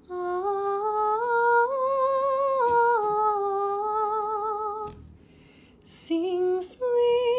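A woman singing a wordless melody with vibrato: one long held phrase that rises and falls for about five seconds, then after a brief pause two shorter notes near the end.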